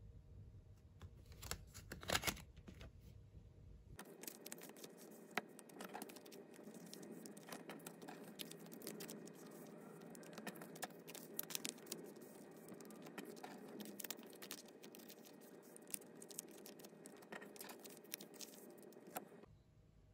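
Photo cards and trading cards being slid into clear plastic card sleeves by hand: quiet crinkling of the plastic with many small clicks and taps of the card edges, a louder flurry about two seconds in.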